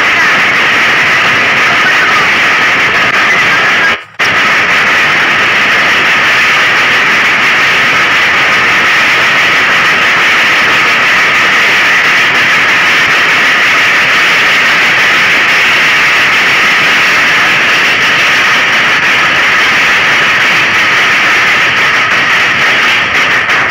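A marching festival drum band of painted bass and snare drums playing together, heard as a loud, dense, continuous din, with a brief dropout about four seconds in.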